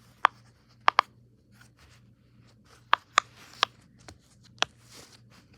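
About seven short, sharp clicks and pops at irregular intervals, from pop-it fidget toys being handled and pressed.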